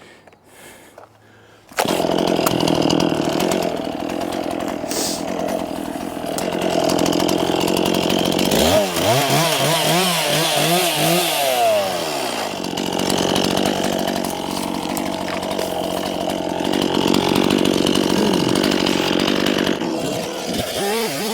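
A chainsaw cuts in abruptly about two seconds in and runs loud and steady, cutting dead spruce. Its engine pitch dips and climbs again for a few seconds midway, then settles back to a steady run.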